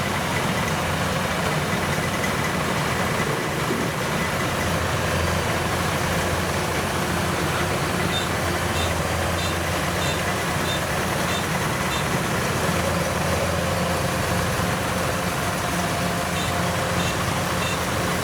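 Diesel engine of a Kubota DC-93G rice combine harvester running steadily. A short high beeper sounds about twice a second for a few seconds around the middle and again near the end.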